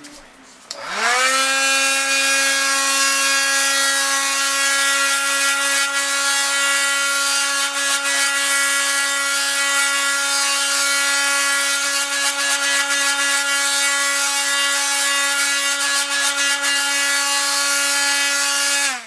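Handheld hot-air blower switched on about a second in, its fan motor spinning up to a steady whine over a rushing hiss of air, then switched off near the end, the whine falling away. It is heating the adhesive under a freshly fitted phone rear glass.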